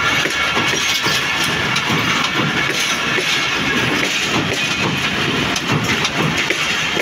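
Pakistan Railways passenger coaches rolling past close by over a steel girder rail bridge: a steady, loud rumble of steel wheels on the rails, with irregular knocks from the wheels.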